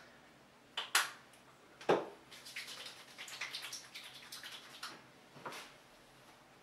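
A hair-oil bottle being handled: a few sharp clicks and taps about a second in, then a few seconds of quick, soft, wet rubbing as argan oil is worked between the hands.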